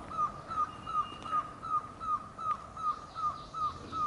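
A bird repeating one short call note over and over, very evenly, a little more than twice a second.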